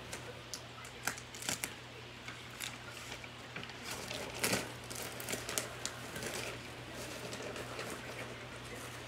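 Large sheets of paper rustling and crinkling as they are handled and folded, with sharp crackles now and then, the loudest about four and a half seconds in.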